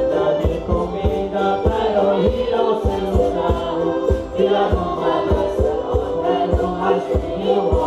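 Live traditional Madeiran folk music: a group sings together over a drum keeping a steady beat.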